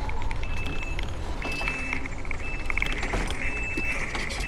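ATV running along a road, its engine rumbling with rattles from the body, and wind buffeting the microphone. A thin high tone comes and goes several times.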